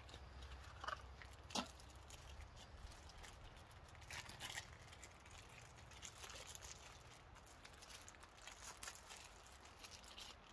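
Faint rustling and scattered small clicks of a telescope eyepiece's packaging being opened and handled.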